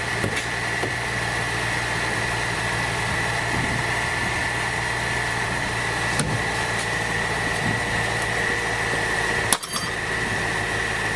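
BMW X5 E70 engine idling steadily, with a steady high whine over it, started so that the steered front wheel can be turned. A brief click near the end.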